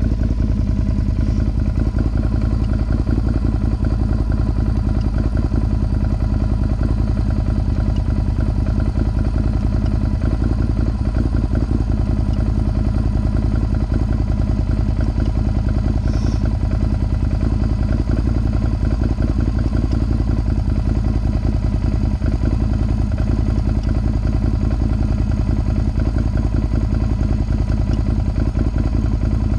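Can-Am Outlander XMR 1000 ATV's V-twin engine idling steadily through a Yoshimura aftermarket exhaust, a rapid even pulse with no revving.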